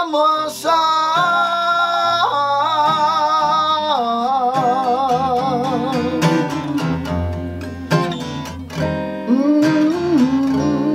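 Acoustic guitar picked and strummed under wordless singing: long held notes with vibrato, higher ones first, then a lower voice near the end.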